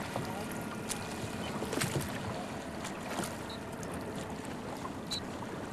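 Rowboat being rowed on open water: water lapping and splashing around the hull, with a few light knocks and a short high chirp about every second and a half in time with the oar strokes.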